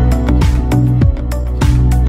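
Electronic background music with a steady beat and deep bass.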